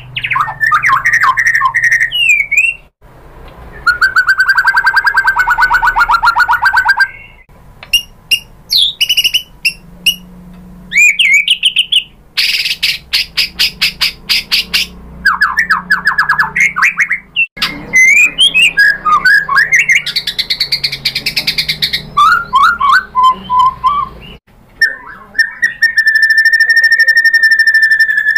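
White-rumped shama singing a long, varied song of fast trills, sweeping notes and buzzy rattling phrases, with a long steady whistle near the end; it is rich in mimicked song material.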